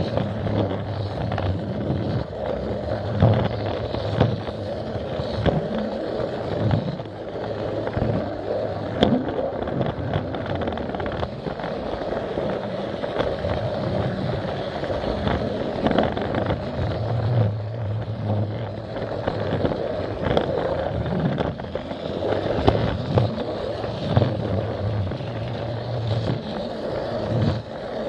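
Battery-powered Plarail toy train running along plastic track, heard close up from the camera riding on it: the small motor and gearbox run steadily while the wheels rattle over the track, with scattered clicks.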